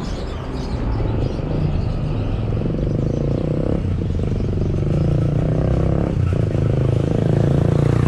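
Street traffic: a motor vehicle's engine running close by, its pitch shifting around the middle and getting slightly louder toward the end.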